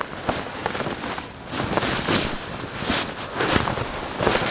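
Nylon stuff sack rustling and swishing as it is worked down over a rolled, strapped Zempire Monstamat self-inflating mattress, in uneven strokes with several louder swishes in the second half.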